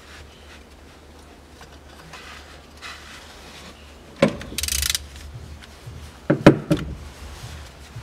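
Metal knocks and clinks of tools and engine parts being handled while the balance-shaft belt tensioner pulley is taken off. There is a sharp knock about four seconds in, then a brief scraping rattle, then two loud knocks in quick succession a little past six seconds.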